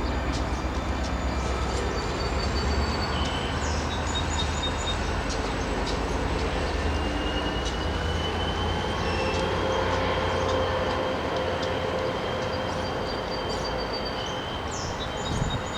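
A train running past on the rails: a steady rumble with a faint, high, drawn-out ringing from the wheels on the track.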